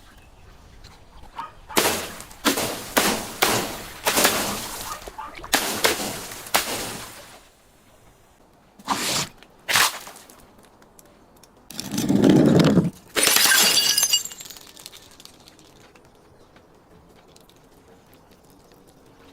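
Glass bottles being crushed and shattering: a rapid run of sharp crunching breaks, two more short cracks, then a heavier, deeper crunch followed by a bright crackle of glass.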